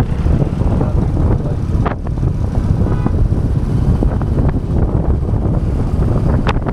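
Wind buffeting the microphone: a loud, uneven low rumble, with a sharp click about two seconds in and another near the end.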